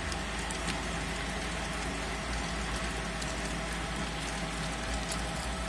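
Bowl dough mixer running at a steady pace, its motor humming evenly as it kneads a wet pinsa dough while extra water is worked in a little at a time.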